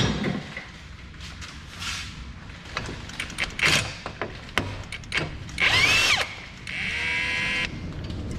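A cordless power tool spins up and back down about two-thirds of the way in, then runs steadily for about a second and stops, backing out the 19 mm caliper bracket bolts. Scattered clicks and clanks of tools and metal parts come before it.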